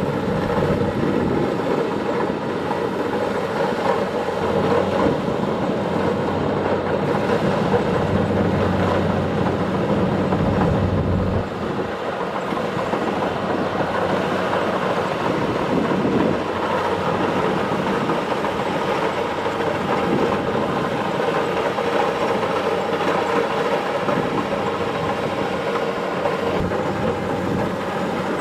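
Kubota DC-70 Plus combine harvester's diesel engine and harvesting machinery running steadily while cutting rice. The low hum drops a little about eleven seconds in.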